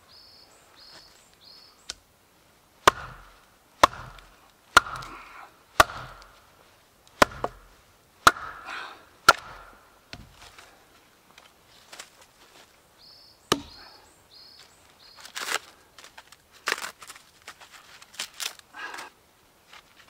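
Axe splitting a section of log lengthwise: about eight sharp chopping blows roughly a second apart, one more a few seconds later, then a cluster of knocks and rustling as the split wood pieces are handled.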